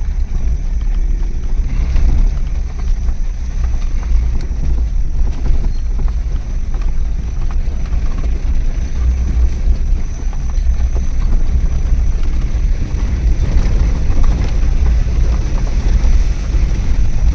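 A vehicle driving, with a loud, steady low road-and-engine rumble and some wind noise on the microphone.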